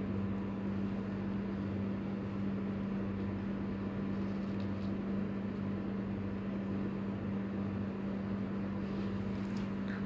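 A steady low mechanical hum with an even hiss behind it, with a couple of faint ticks near the middle and near the end.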